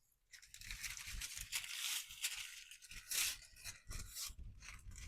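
Reflective foil ducting tape crinkling and tearing as it is handled and pulled, in irregular crackly rustles.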